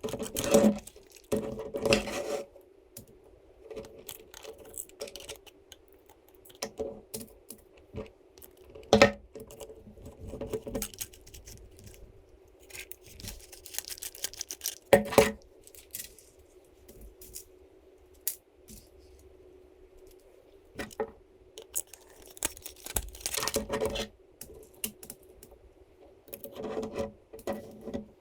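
Small hard parts being handled during assembly, clicking, tapping and clattering irregularly, with a few sharper, louder knocks among them, over a steady faint hum.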